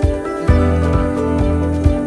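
Background music: sustained chords over a steady low beat, about two beats a second.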